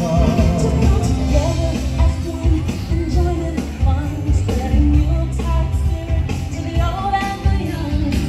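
Parade music: a song with singing over a steady beat.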